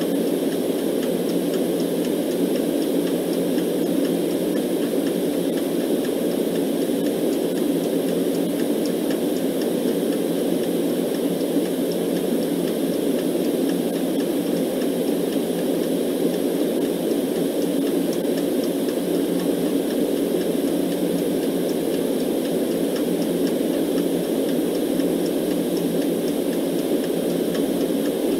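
Steady white noise, its weight low and rumbling, with faint clock ticking mixed in.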